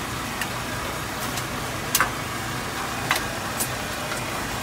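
Metal spatula clinking against a large steel teppan griddle: several sharp clicks, the loudest about two seconds in, over a steady engine-like hum.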